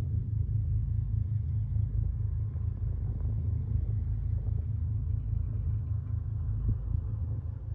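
Car ferry's diesel engines running, a low, steady, throbbing rumble.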